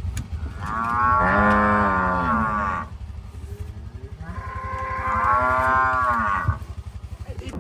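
Beefmaster cow mooing twice, each moo a long call of about two seconds that swells and falls away, over the low steady idle of a vehicle engine.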